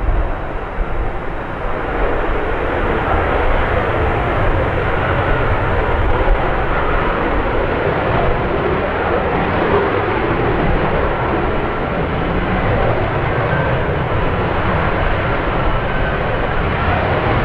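F-35B Lightning II in short-takeoff/vertical-landing mode, its F135 jet engine and shaft-driven lift fan running at high thrust as it flies slowly with gear down. The sound is a loud, steady jet noise with a deep rumble underneath.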